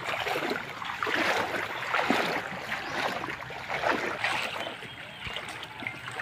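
Water sloshing and splashing as people wade through knee-deep creek water, with a surge of splashing at each stride, about once a second.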